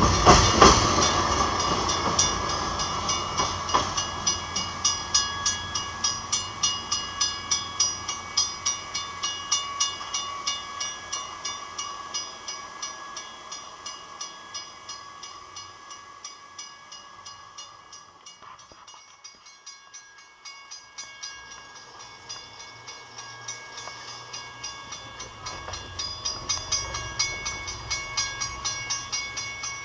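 Railroad grade-crossing bell ringing steadily, about two strikes a second, over the low rumble of a departing commuter train that soon dies away. The bell fades out about two-thirds through, and after a short lull another crossing bell starts ringing, growing louder near the end.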